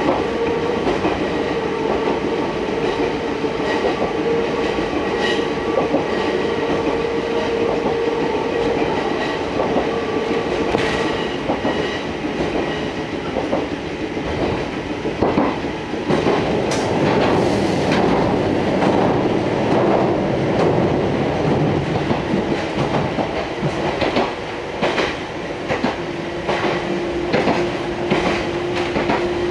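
A Fukui Railway Fukubu Line train running, heard from inside the car, with wheels clicking over the rail joints. A steady motor tone fades about a third of the way in, and a lower one sets in near the end.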